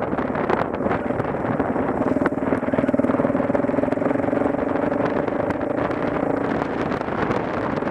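Motorcycle engine running at a steady pitch while riding, over a rush of wind and road noise.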